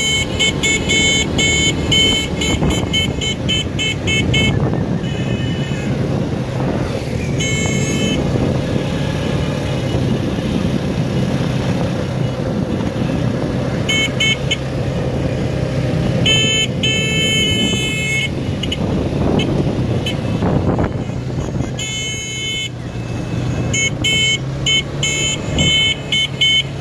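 Quad bike (ATV) engines running steadily as a convoy drives along. Several bursts of rapid, repeated horn beeps sound over the engines at intervals.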